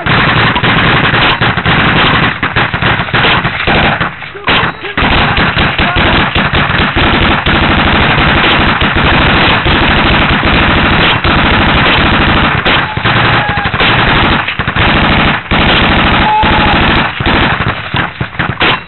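Close, sustained automatic gunfire: long, rapid bursts of shots that run almost without a break, pausing briefly about four seconds in and again near fifteen seconds.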